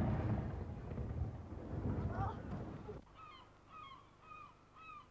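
The low rumble left by a ceremonial cannon shot, fading away over about three seconds. After a sudden cut, a bird calls again and again, about two arched, honking calls a second.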